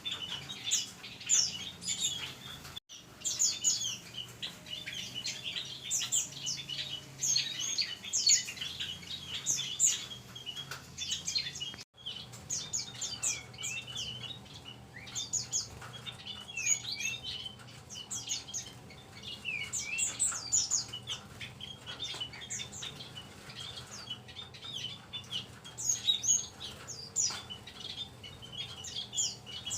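Mixed flock of small aviary songbirds, such as white-eyes, munias and bulbuls, chirping and calling over one another in quick, high-pitched notes, broken twice by very brief gaps.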